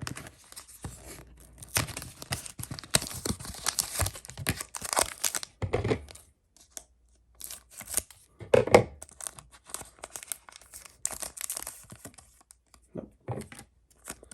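A Pokémon trading-card booster pack's foil wrapper being torn open and crinkled: a run of crackly rips and crinkling in the first half, one sharp loud rip a little past the middle, then scattered softer crinkles.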